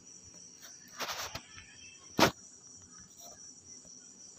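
Steady high-pitched insect chirring in the background, with a brief rustle about a second in and a sharp knock just after two seconds, the loudest sound.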